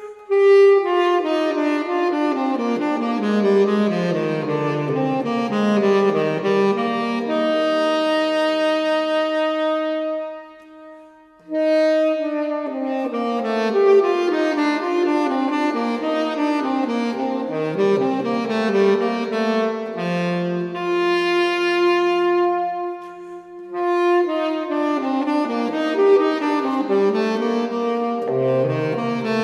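Instrumental soundtrack music, a melody with accompaniment, that stops briefly about ten seconds in and then carries on.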